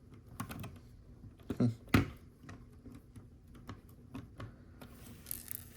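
Small plastic Lego pieces being handled on a table: scattered light clicks and taps, with two louder knocks about a second and a half to two seconds in.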